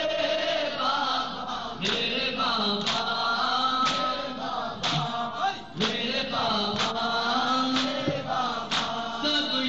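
Male reciter chanting an Urdu noha, a Shia lament, into a microphone. Sharp beats come about once a second, matching the rhythmic chest-beating (matam) that keeps time with the lament.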